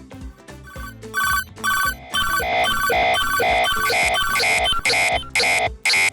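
Japanese railroad crossing warning bell clanging in a steady repeated rhythm, about two to three strikes a second, starting about a second in.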